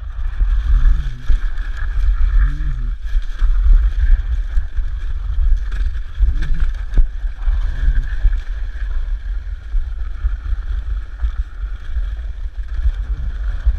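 Dog sled running over bare glare ice: a steady scraping hiss from the runners with scattered knocks and rattles, under a heavy low rumble of wind and vibration on the microphone.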